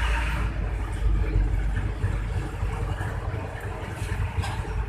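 Intercity bus engine running with a steady, low growling exhaust rumble.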